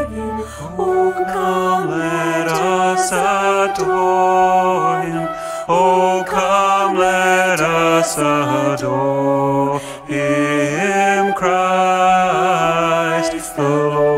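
A Christmas carol sung by a woman's voice, accompanied by acoustic guitar, electric bass guitar and flute, in held, gliding melodic lines over a steady bass.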